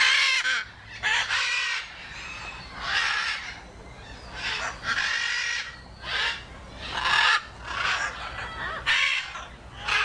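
Macaw squawking: about ten harsh, loud calls, roughly one a second.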